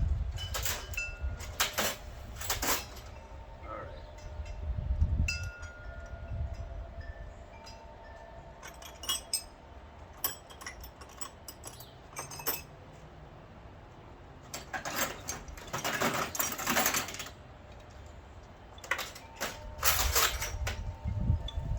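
Metal clinking and clattering, with ringing metallic tones that hang on for several seconds. The clatter is densest about two-thirds of the way through and again near the end.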